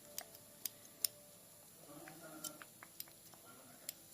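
Slow ASMR tapping and dropper sounds: sharp, irregular clicks about half a second to a second apart, the loudest about a second in, with a softer, muffled sound about two seconds in.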